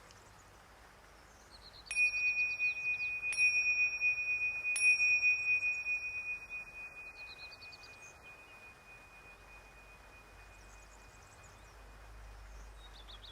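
A high-pitched meditation chime struck three times, about a second and a half apart, each strike ringing on in one clear tone that slowly fades. Birds chirp faintly in the background.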